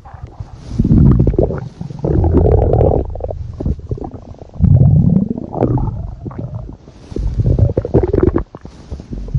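Loud stomach growling: gurgling rumbles in about five bursts of roughly a second each, some with a wavering, squeaky pitch.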